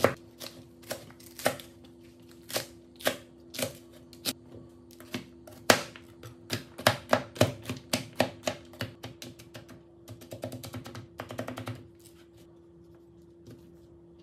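Kitchen knife chopping onion and garlic on a plastic cutting board, sharp separate knocks about twice a second that speed up, then a rapid run of about ten chops a second as the garlic is minced, stopping near the end. A faint steady hum lies underneath.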